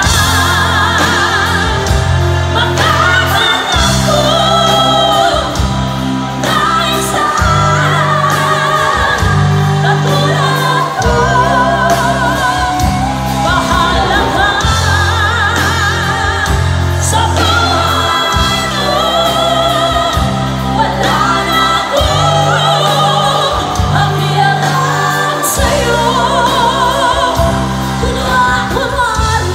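Live band performance: several female vocalists singing with strong vibrato over electric guitar, bass, drums and keyboards, with a heavy bass line moving from note to note every second or two.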